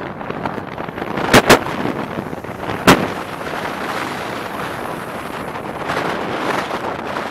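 Steady road and wind noise heard from inside a moving vehicle on a highway. Three sharp knocks cut through it: two in quick succession about a second and a half in, and a third about a second and a half later.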